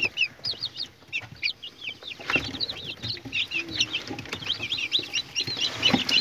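Newly hatched chicks peeping: a steady stream of short, high, falling peeps that grows busier and louder about two seconds in.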